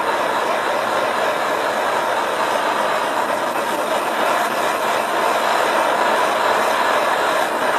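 Hose-fed propane torch burning with a steady, even hiss as its flame is played over a green bamboo stalk to heat-treat it.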